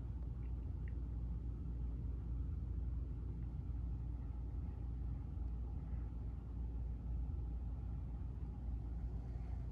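Steady low rumble with no rhythm or change in level.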